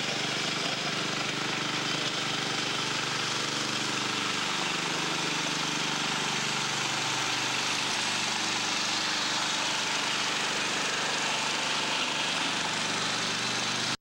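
Hydrostatic-drive garden tractor's engine running steadily as the tractor drives along.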